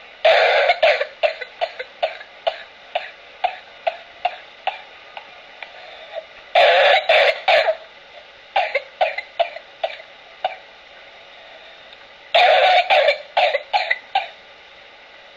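An infant's whooping-cough (pertussis) coughing fits, three of them about six seconds apart. Each fit opens with a loud burst and trails into a run of short coughs, about two a second, that grow fainter. No inspiratory whoop follows.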